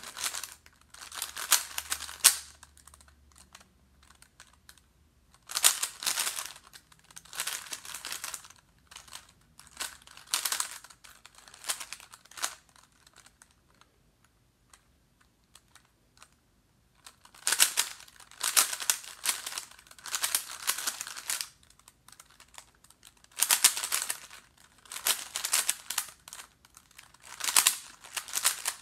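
Plastic 3x3 Rubik's Cube being turned fast, its layers clicking and clattering in quick runs of turns a second or two long, with short pauses between and a few seconds' pause in the middle.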